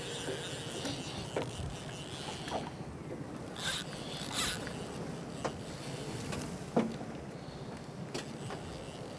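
Yamaha outboard motor running steadily with water washing against the hull. A thin steady whine stops about two and a half seconds in, and a few scattered clicks and knocks sound through it.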